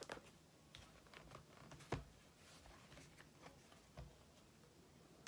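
Faint handling sounds of a laptop being lifted out of its cardboard box: a few soft knocks and taps, the loudest about two seconds in, over near silence.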